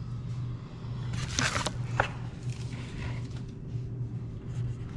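Plastic bubble-wrap packaging rustling as a kitchen knife is unwrapped by hand, with a short sharp click about two seconds in, over a steady low hum.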